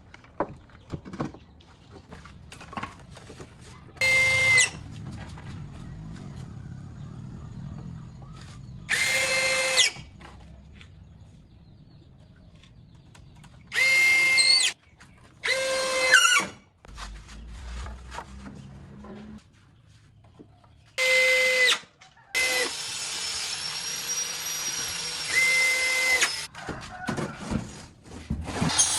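Power drill running in short bursts of about a second each, as if driving screws, with a steady motor whine that stops sharply each time. Near the end it runs for a few seconds straight.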